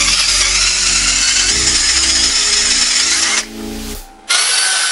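Power drill with a spade bit boring through a pine board, running steadily. The sound drops away for about a second some three and a half seconds in, then comes back loud.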